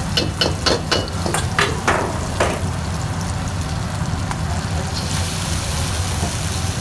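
A metal ladle clinks against a hot iron wok about nine times in quick succession in the first two and a half seconds, over a steady low kitchen rumble. About five seconds in, a sizzling hiss rises as poured liquid hits the hot wok.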